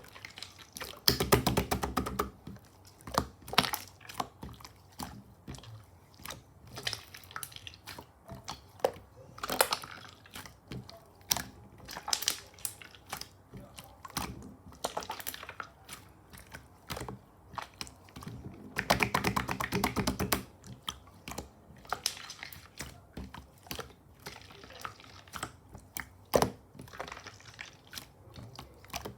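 Clear slime being worked by hand: irregular wet clicks and small air-bubble pops, with two longer runs of rapid crackling pops, one about a second in and one about two-thirds of the way through.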